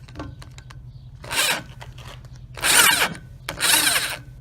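Drill turning a Time-Sert step bit into a steel foot peg mount in three short pulses about a second apart, each a little longer than the last, the bit cutting the counterbore that lets the thread insert sit recessed.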